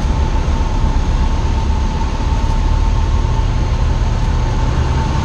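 Cessna 172 Skyhawk's engine and propeller droning steadily inside the cockpit on final approach with 20 degrees of flap, with a faint steady high tone running under the drone.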